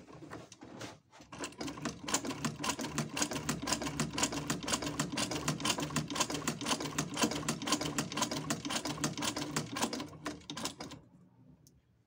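Adler shoemaker's sewing machine stitching through folded cloth: a fast, even clatter of needle and mechanism strokes over a steady motor hum, slowing and stopping about a second before the end. The machine runs well on this test after a partial repair.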